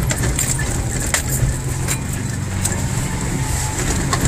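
Four-wheel-drive's engine running steadily as it drives an off-road dirt track, with a few scattered sharp clicks and knocks.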